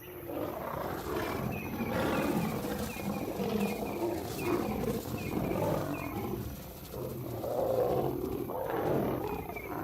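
Lions fighting: a male lion and two lionesses snarling and roaring continuously, swelling and easing in loudness.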